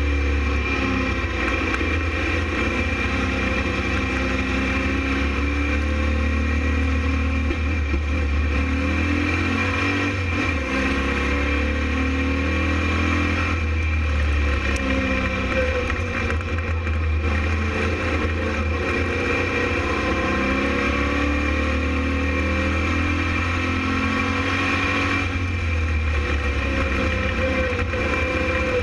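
Onboard sound of an SK Modified race car's small-block V8 running hard at racing speed. Its pitch rises and falls as the driver gets on and off the throttle around the laps.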